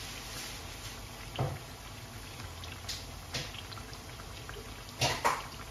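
Chana dal pakoras frying in oil over low heat: a steady soft sizzle with a few scattered pops. A couple of sharper clicks come near the end.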